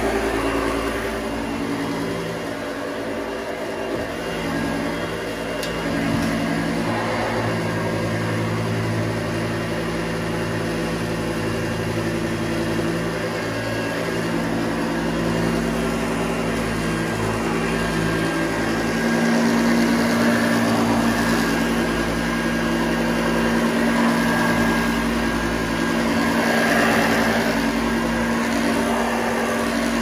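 Hoover Junior Exclusive U1206 upright vacuum cleaner running as it is pushed across carpet: a steady motor hum over the rush of air, its tone shifting a little as it moves.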